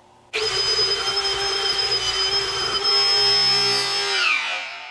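Cordless drill spinning a wire wheel brush against a rusted steel engine valve spring held in a vise, scrubbing off surface rust. The drill starts abruptly, runs with a steady high whine over the scratch of the wire bristles, then is let off near the end and winds down with a falling pitch.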